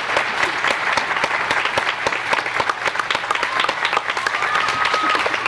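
Audience applauding: many hands clapping steadily and thickly. A faint high held tone, like a whistle, joins for the last second and a half or so.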